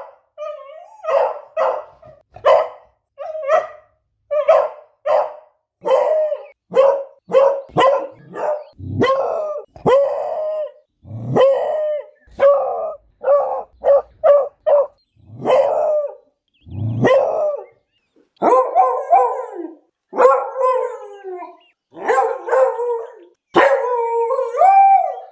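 Beagle barking about twenty times in short separate barks, some deep and chesty. From about 18 seconds in it changes to longer wavering bays and howls that slide up and down in pitch.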